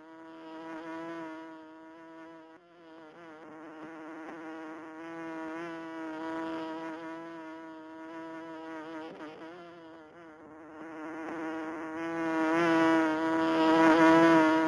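Bee's buzzing flight sound: one steady droning buzz that swells and fades, growing loudest near the end.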